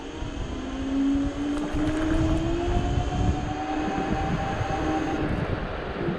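Dualtron Thunder electric scooter's hub motors whining as it rides, the pitch climbing gradually for the first few seconds, then holding steady and easing slightly near the end. A low rumble of wind and tyres runs underneath.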